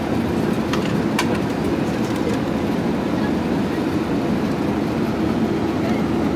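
Steady in-flight cabin noise of an Airbus A380: an even, low rush of engines and airflow heard from a passenger seat. Two faint clicks come about a second in.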